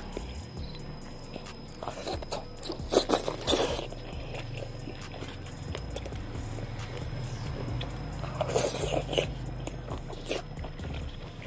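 Close-up mouth sounds of a person eating, biting and chewing food with wet clicks and crunches. The chewing comes in two louder clusters, about two seconds in and again about eight seconds in.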